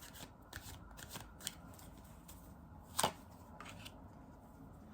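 Tarot cards being handled: soft, scattered card clicks, with one sharper snap about three seconds in.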